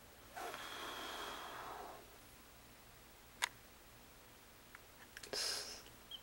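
A person's long breath out, a single click about midway, then a shorter breath near the end.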